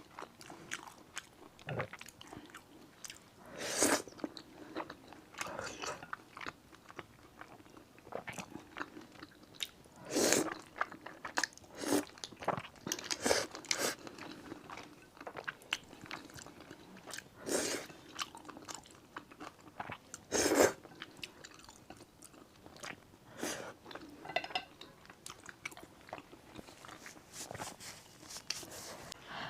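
Close-miked eating: irregular chewing, biting and wet mouth noises, with a louder bite or slurp every few seconds.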